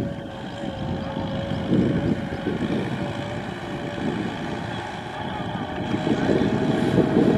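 Kubota M6040SU tractor's diesel engine running steadily under load as it pulls a trailer through soft mud, growing louder near the end.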